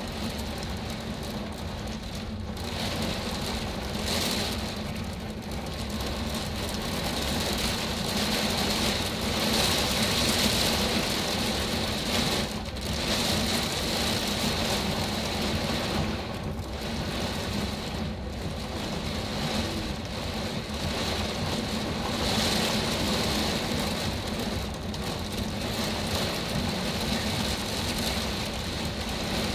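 Storm surf breaking over shoreline rocks, mixed with rain: a steady, heavy rushing roar that swells and eases slowly with the waves.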